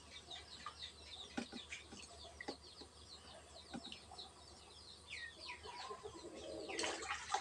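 Faint chirping of small birds and clucking chickens in the background, with a short louder splash of water near the end as eggs are lifted out of a pot.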